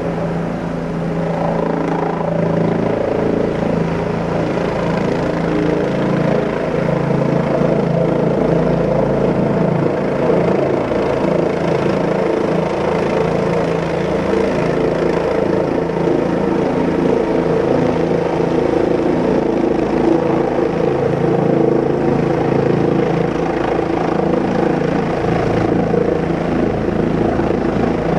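Rotorcraft in flight: a continuous, steady rotor and motor hum with several steady tones that shift slightly in pitch, growing a little louder after about two seconds.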